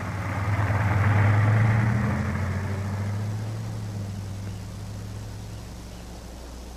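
A car drives off over a dirt lot: its engine hum and tyre noise are loudest about a second and a half in, then fade as it moves away.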